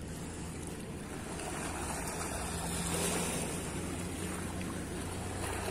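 Steady low engine drone under a constant wash of noise.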